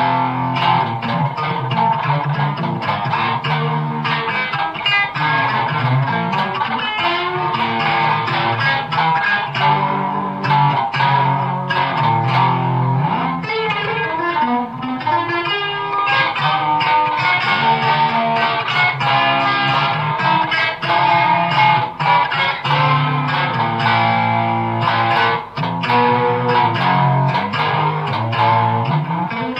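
Solid-body electric guitar played through an amplifier in a free improvisation: a steady, unbroken stream of picked notes and chords.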